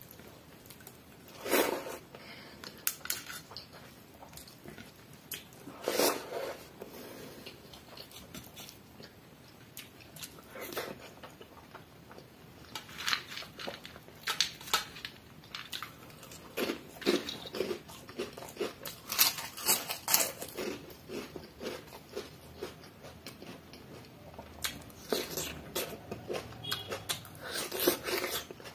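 Close-miked eating: chewing mouthfuls of pani bhat (rice soaked in water) and crunching fried snack chips, in irregular bursts of crisp crunches with chewing and pauses between.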